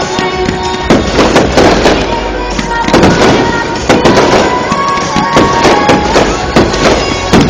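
Fireworks going off in a rapid barrage, several loud bangs a second, with music playing underneath.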